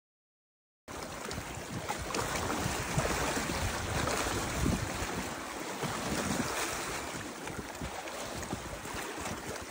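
Wind buffeting the microphone over choppy lake water lapping at a rocky shore, coming in suddenly about a second in after dead silence.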